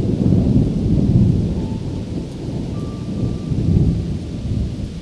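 Rolling thunder over heavy monsoon rain. The low rumble builds, swells about a second in and again near the end, then dies away.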